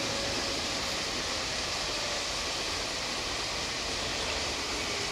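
Steady rushing rumble of a long passenger train rolling past along the hillside track, heard at a distance across open fields.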